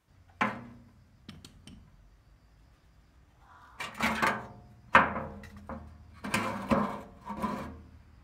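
A series of irregular knocks and clanks, each with a short ringing decay, as tools and parts are handled on the crawler undercarriage of a tombstone carrier during an oil change. The strikes cluster between about four and eight seconds in, the loudest about five seconds in.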